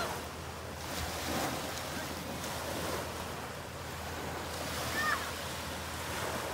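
Small waves breaking and washing up on a sandy beach, with wind on the microphone.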